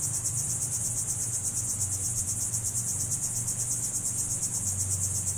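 Steady, high-pitched, rapidly pulsing chorus of insects, with a low steady hum underneath.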